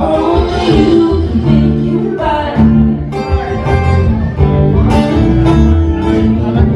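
Live acoustic duo: two guitars, one an acoustic, strummed and picked under a man's singing voice, with steady low bass notes.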